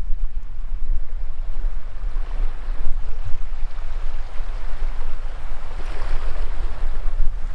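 Small waves washing up and over the sand at the water's edge, the hiss of the wash swelling to a peak about six seconds in, over a steady low wind rumble on the microphone.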